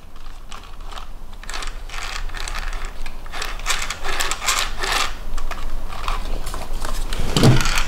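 Plastic gears in the front gearbox and differential of a 1/16 WPL WP-14 RC truck clicking and rattling as a front wheel is turned by hand, in runs of rapid ticks that thicken through the middle.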